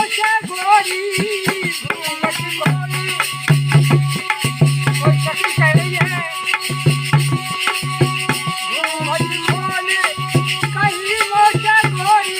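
Music: a voice singing over a repeating low beat, with shaken rattle percussion and a steady held drone note.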